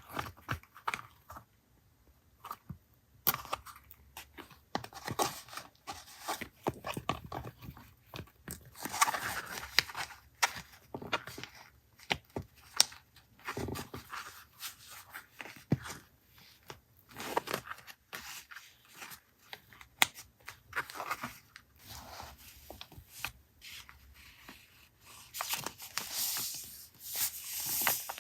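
Paper being handled for a journal collage: tearing, rustling and crinkling, with many short clicks and taps in an irregular run.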